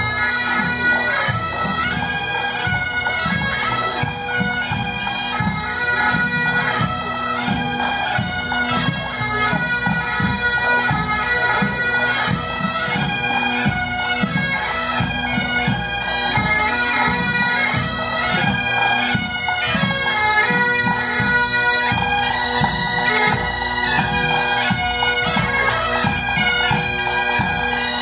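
A pipe band playing: several Great Highland bagpipes sound a melody over their steady drones, with snare and bass drums beating time underneath.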